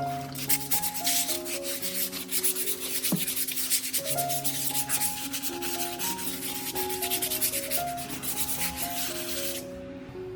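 Fast, rough abrasive rubbing strokes over light background music; the rubbing stops abruptly near the end.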